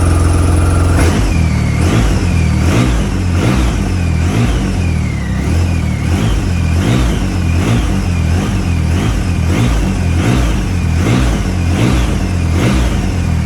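Triumph Rocket 3's big inline-triple engine being revved over and over, its pitch rising and falling in blips roughly once a second over a heavy low drone.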